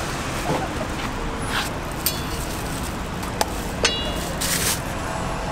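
Steady hum of a busy street stall, with a few sharp clinks, one of them briefly ringing, and a couple of short scrapes.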